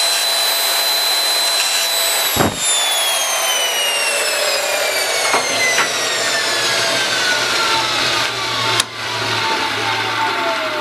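Electric grinding wheel running at speed with a steady high whine while grinding a steel washer clamped in a vise. About two seconds in a thump, then the whine falls steadily in pitch as the motor and wheel coast down, with a sharp click near the end.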